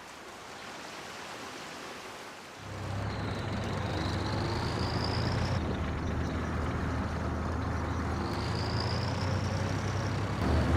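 A heavy vehicle engine running with a steady low drone and a faint gliding whine, cutting in abruptly a couple of seconds in after a quiet hiss.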